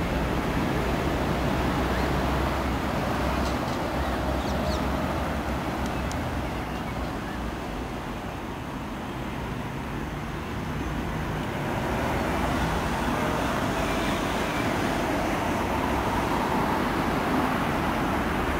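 Steady road traffic noise, a continuous rumble and hiss that dips slightly in level around the middle.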